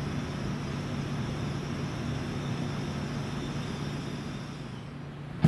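Steady cabin hum inside an N700S Shinkansen car standing at a station before departure, its onboard equipment and air conditioning running, with a low drone and a faint high whine. A single sharp click comes at the very end.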